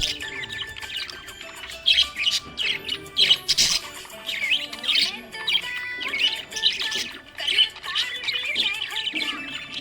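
Budgerigar chirping and warbling in a run of quick, high chirps and squawky notes that come in clusters, over background music.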